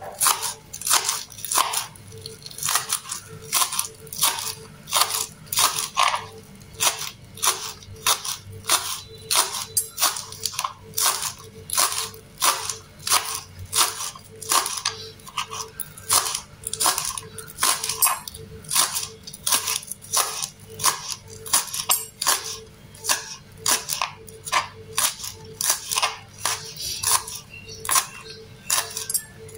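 Small knife chopping spring onions on a plastic cutting board: crisp, even strokes about twice a second, each cutting through the stalks and tapping the board.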